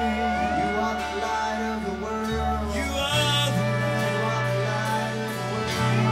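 Live worship band playing a slow song: electric and acoustic guitars over held bass notes that change pitch a few times.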